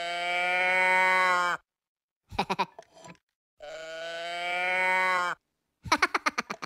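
Cow-print moo can toy mooing in long, drawn-out calls, twice, each lasting one and a half to two seconds. Between the moos, short bursts of cartoon-voice giggling.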